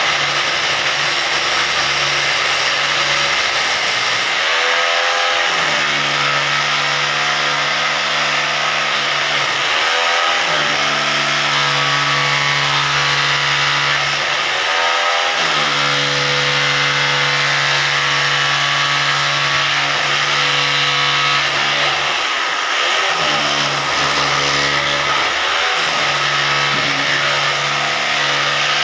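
Hammer drill motor running steadily while cutting, its speed dipping and picking up again about five times.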